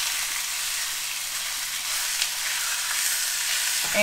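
Ground turkey frying with onions and garlic in a skillet, sizzling steadily as a spatula breaks the meat up, with a few faint scrapes of the spatula.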